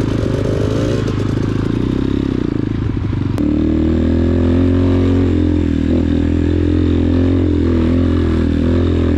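X-Pro Titan 250 dirt bike engine running under way on a trail. About three and a half seconds in, the sound changes abruptly to a steadier, slightly louder engine tone held at a constant pitch.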